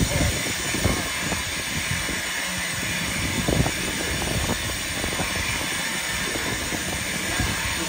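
LMS Jubilee class steam locomotive 45596 Bahamas standing with steam hissing steadily from it, over a low rumble and a few irregular knocks.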